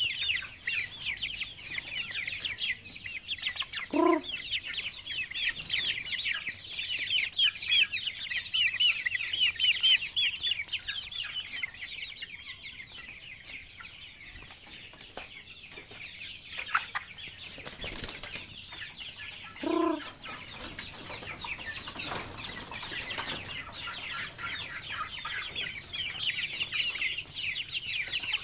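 A flock of half-grown chickens peeping constantly in short, high, falling chirps. A lower squawk cuts through twice, once about four seconds in and again about twenty seconds in.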